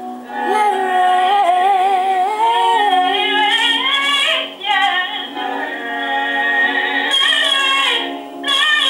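Female gospel singing with a wide vibrato over a steady low held note, with two short breaks between phrases.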